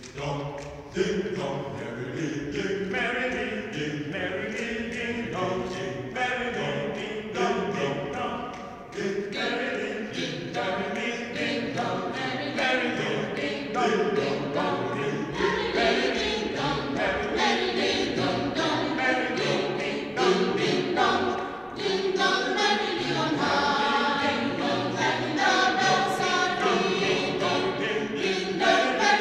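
Mixed choir of men's and women's voices singing unaccompanied in parts, rehearsing a carol, growing louder in the last third.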